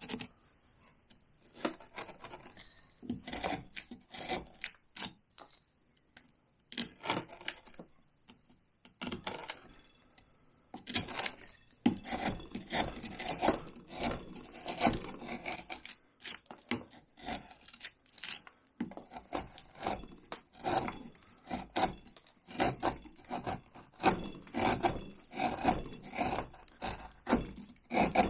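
Hand carving tool paring cottonwood bark in short scraping cuts, a few at a time at first. About halfway through the cuts become steady, several a second.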